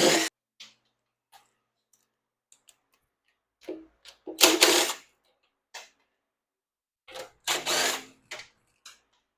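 A tool working the 7/16 oil pan bolts out of a Ford 460 V8: three short, loud bursts, at the start, about halfway through and near the end, with light clicks and taps between them.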